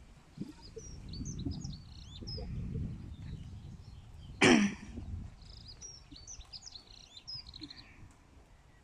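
Small birds chirping and singing, over low thuds and shuffling of horses moving about the shelter, with one sudden loud burst about halfway through.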